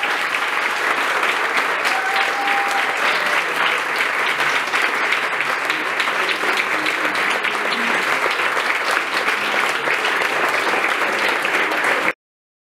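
Audience applauding, a dense, steady clatter of many hands clapping, which cuts off suddenly near the end.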